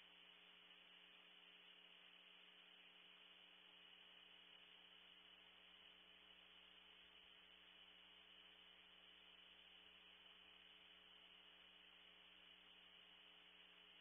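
Near silence: a steady low electrical hum with faint hiss, unchanging, with no distinct sounds from the owl.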